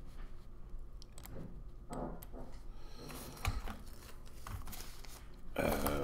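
Quiet scattered clicks and small handling noises while someone sets up an audio file to play, with a brief muttered stretch of speech near the end.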